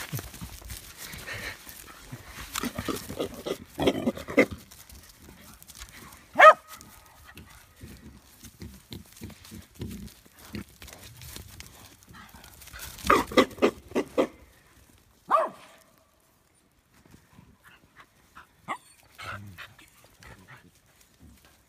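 Pig grunting in quick runs of short grunts, with a few sharp louder calls, the loudest about six seconds in.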